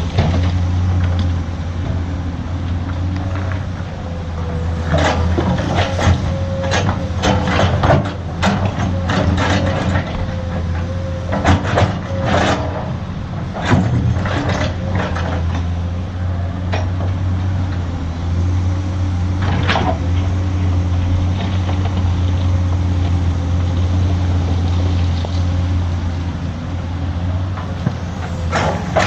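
Heavy diesel engine of an excavator and dump truck running steadily, with a series of metallic clanks and knocks from about five to fifteen seconds in and once more around twenty seconds in, typical of the machines working.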